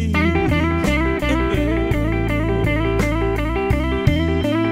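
Blues music: an electric guitar lead plays a quick run of notes over a bass line.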